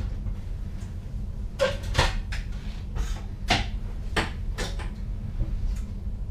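Irregular clicks and knocks, like switches, latches or fittings being handled in a train driver's cab, over the cab's steady low hum. The clicks begin about one and a half seconds in and come unevenly, eight or nine of them.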